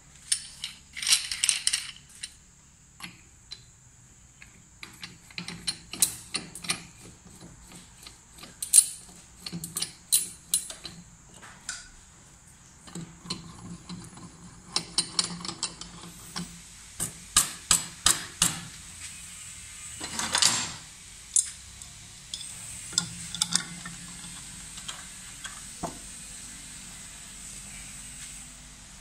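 Steel hand tools clicking and clanking against a motorcycle's magneto flywheel as a flywheel puller is threaded into it and an adjustable wrench is set on it: many separate metallic clicks and knocks, with a quick run of clicks a little past halfway and a short scrape soon after.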